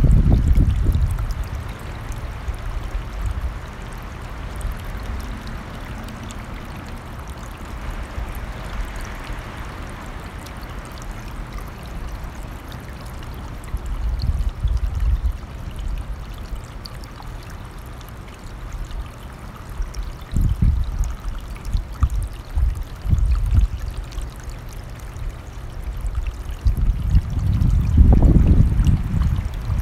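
A running stream rushing steadily, with gusts of wind rumbling low over it at the start, in the middle and most strongly near the end.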